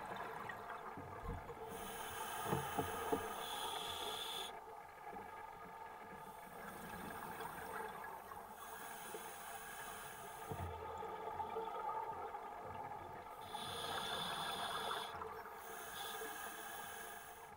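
Scuba diver breathing through a regulator underwater: a rush of hissing air with each breath, repeating about every four seconds.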